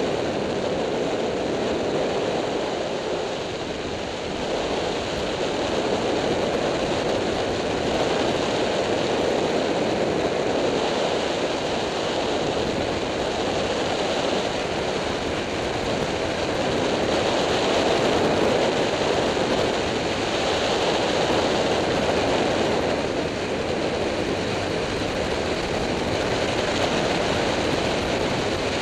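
Steady wind rush over the microphone of a Yamaha FZ6-R motorcycle riding at highway speed, a loud even hiss that swells and eases slightly.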